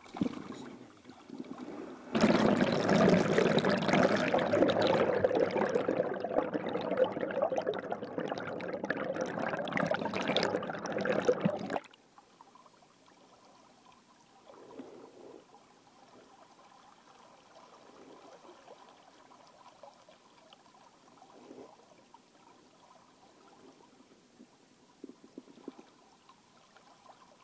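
River water gurgling and pouring loudly right at the microphone around a landing net holding a shad. It starts about two seconds in, lasts about ten seconds, then cuts off suddenly to the faint flow of the river.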